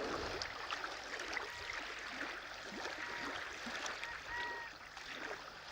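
Shallow water trickling and babbling over stones, with a scatter of small splashes and drips. Three short, flat, whistle-like notes sound over it.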